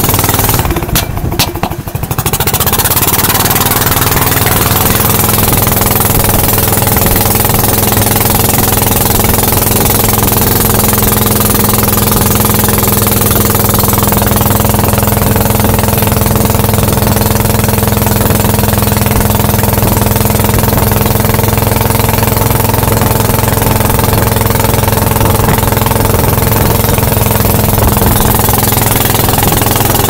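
Long-tail boat engine running steadily at one constant pitch, loud and close. The sound drops briefly about a second in.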